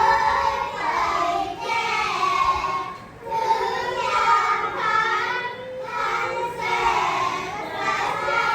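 A child's voice chanting Thai verse in the traditional melodic recitation style, with long held and gliding notes in phrases broken by short breaths.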